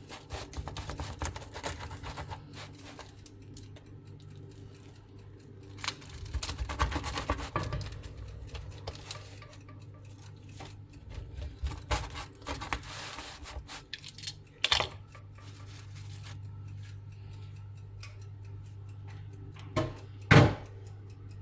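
Kitchen utensils clicking, scraping and knocking on a crisp pizza and the surface under it, with a sharp knock near the end, over a low steady hum.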